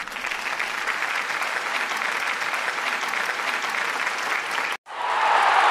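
Applause: steady, dense clapping that cuts off suddenly near the end, followed by a louder rush of noise swelling in.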